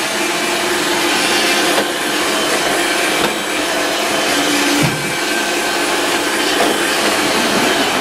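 Roomba robot vacuum running with a steady whirring hum, broken by a few brief knocks.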